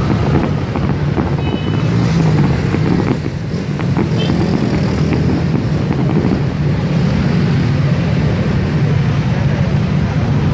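A fireworks display going off: a dense, continuous rumble of booms with many sharp pops and crackles running through it.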